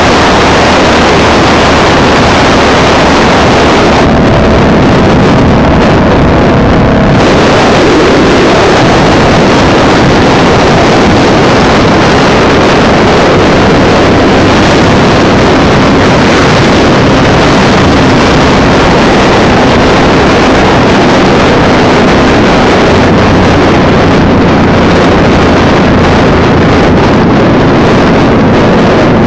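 Cruiser motorcycle engine running steadily at road speed, with loud wind rushing over the microphone.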